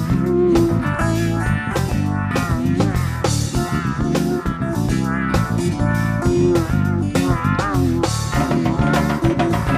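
Background music: an instrumental passage of a rock/blues song with electric guitar, bass and drums and a steady beat.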